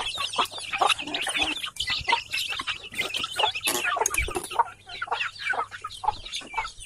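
A crowd of young village chickens, almost a month old, peeping and clucking continuously, with many short high calls overlapping.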